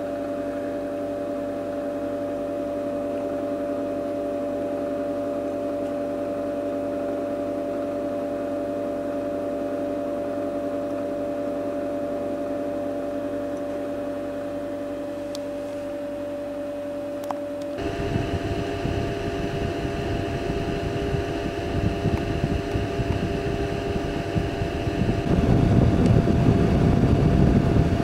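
Cooling fan of a Systron Donner Model 7015 frequency counter running with a steady hum. About eighteen seconds in the hum changes pitch and a rough low rumble joins it, getting louder near the end.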